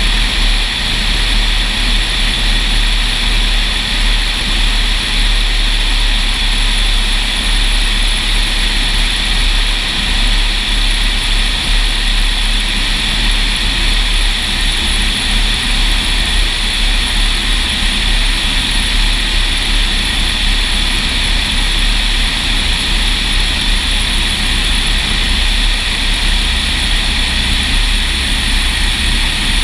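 Cessna 172 SuperHawk's piston engine and propeller droning steadily on approach to land, with wind rushing over the microphone.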